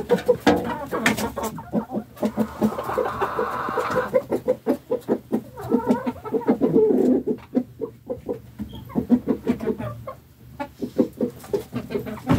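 A flock of hens and a rooster clucking: a steady run of quick clucks, with a couple of longer drawn-out calls about two seconds in and again around seven seconds.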